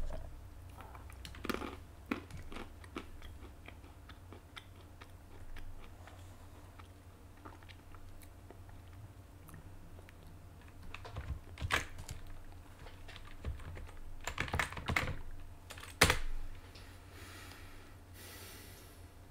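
Computer keyboard typing in short, scattered bursts of key clicks, busiest in the second half, with one sharp, louder keystroke near the end.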